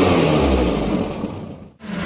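Turbocharged car engine coming off the throttle, its pitch falling, with a fast fluttering chatter from the turbo as it surges on lift-off. The sound fades out near the end and another engine starts revving.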